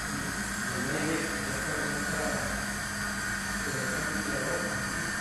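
Somfy motors in a bank of motorized Roman shades running together: a steady motor hum and hiss with a few held tones and no change in pitch.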